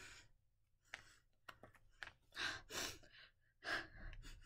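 A person sniffing a new plastic zip-top bag held to her nose: several breathy sniffs and breaths in and out, with a few faint clicks in between.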